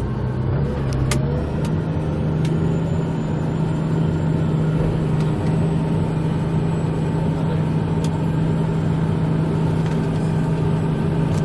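Case IH Quadtrac 535 tractor's diesel engine running steadily under ploughing load. Its pitch steps up about a second in and then holds.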